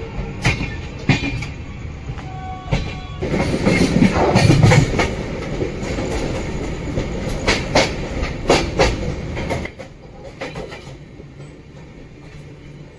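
Gondwana Superfast Express train running along the track: a steady rumble with the wheels clicking sharply over rail joints. It grows louder from about three seconds in, then turns suddenly quieter about three seconds before the end.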